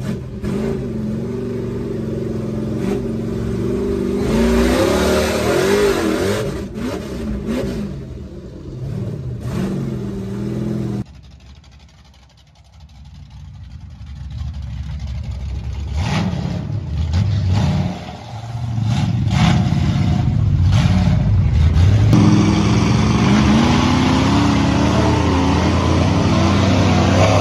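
Lifted Ford pickup mud truck's engine revving hard, rising and falling in pitch, first heard inside the cab. It drops away suddenly about eleven seconds in, builds up again, and runs loud near the end as the truck churns through a mud bog.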